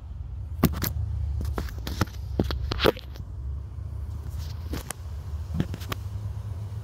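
Wind rumbling low and steadily on the microphone outdoors, with about a dozen sharp clicks and knocks of hand and tool handling, most of them in the first three seconds.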